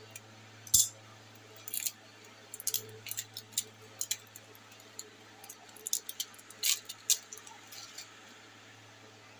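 Hands opening and handling a small cardboard lip balm box: a string of irregular sharp clicks, taps and rustles, loudest about a second in and again near seven seconds, over a faint steady low hum.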